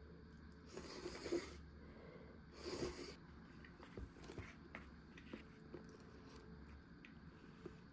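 Someone eating Donbei instant kakiage udon: two short breathy bursts about two seconds apart, then a few soft clicks.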